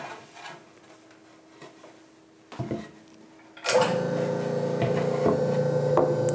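A short knock, then a bench scroll saw switched on a little over halfway through, running steadily with a hum of several steady tones and a few light clicks as its thin blade saws up and down beside a wooden guqin board.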